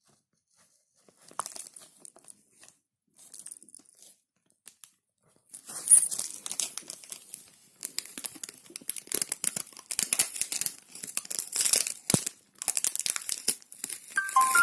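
Packaging being torn open and crinkled by hand during a phone unboxing: a few light rustles at first, then from about five seconds in a dense, continuous crackling and tearing.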